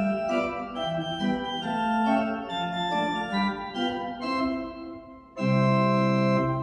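Church pipe organ playing a line of short notes that softens and thins out, then, after a brief break near the end, a louder full closing chord held with a deep bass note.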